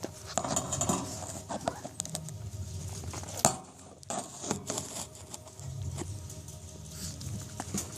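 A litter of 4- to 5-week-old puppies scuffling and pattering about as they play, with scattered small clicks and knocks and one sharper knock about three and a half seconds in.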